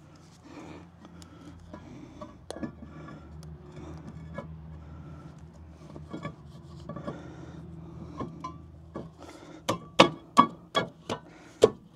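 A new rear brake rotor on a Land Rover LR4/LR3 being slid over the hub studs and parking-brake shoes: light metal scraping and clinking, then a quick run of sharp metallic knocks near the end as it is worked onto the hub. A steady low hum underneath stops about three-quarters of the way through.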